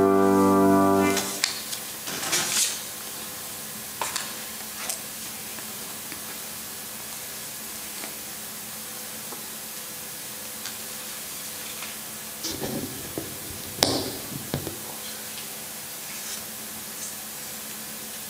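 A group's sung chord dies away about a second in; then a steady hiss of the room and recording, broken by scattered short knocks and rustles from handling, with a cluster of louder bumps a little after halfway through.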